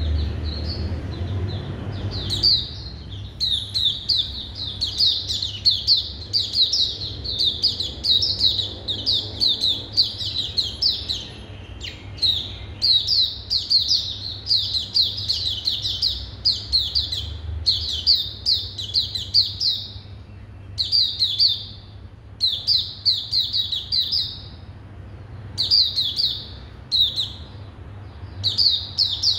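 Caged white-eye singing: long runs of rapid, high twittering notes, starting about two seconds in and broken now and then by short pauses.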